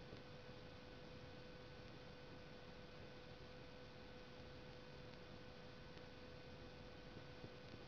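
Near silence: a steady background hiss with a faint, steady hum.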